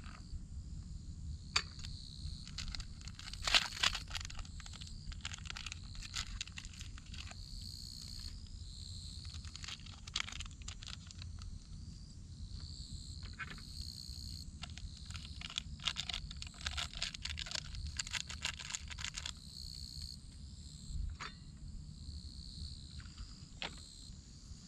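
Insects chirping steadily at a high pitch, with scattered clicks, clatters and rustles of camp cookware and food packaging being handled. A steady low rumble runs underneath.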